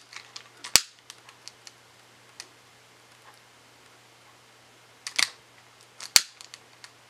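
Long-nosed utility lighter being clicked to light an alcohol burner: sharp single clicks of its ignition trigger, a loud one just under a second in and a pair about 5 and 6 seconds in, with fainter ticks between.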